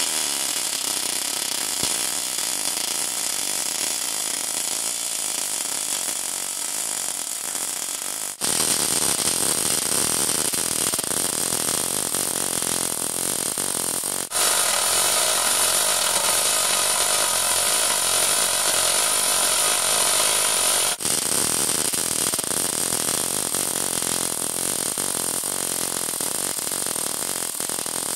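Gas metal arc welding from an automatic orbital pipe-welding bug running a weld on steel pipe: a steady loud hiss with a dense fine crackle. The sound changes abruptly three times, growing louder with a steady hum in the middle section.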